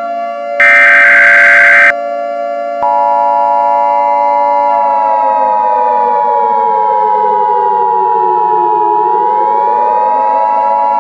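Emergency Alert System signalling: a short, harsh digital data burst, then about three seconds in a steady high attention tone. Beneath it a siren wail holds, slides down in pitch, and rises again near the end.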